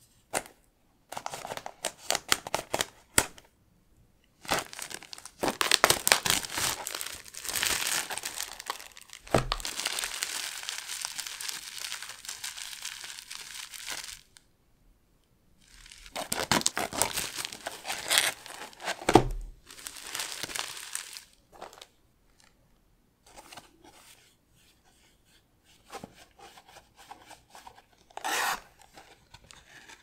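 Crinkly plastic shrink wrap being cut and torn off a trading card box and crumpled, in long crackling stretches broken by short pauses, then fainter rustling as the box is handled.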